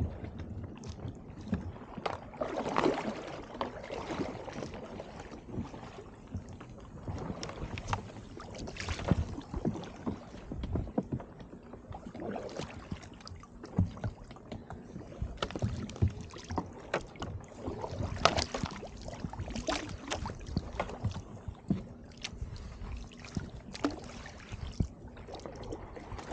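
Kayak paddle strokes splashing in icy water, with irregular knocks and clicks as small pieces of brash ice bump against the hull.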